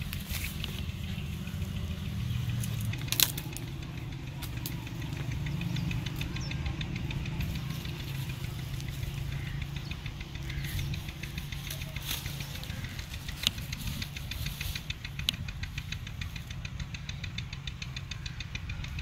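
Leaves and branches of an amla tree rustling and a plastic bag crinkling as gooseberries are picked by hand, with a few sharp clicks, over a steady low rumble.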